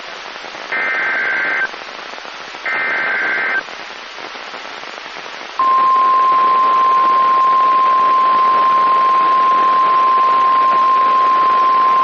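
NOAA Weather Radio Emergency Alert System signal: the last two of three one-second bursts of the SAME data header, a short gap of static, then the long steady warning alarm tone coming in about five and a half seconds in, all over constant radio hiss. It heralds a tornado warning.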